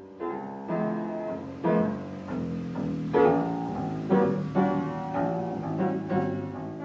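Upright piano played live, a melody over chords with notes struck in a steady rhythm and a few strongly accented chords.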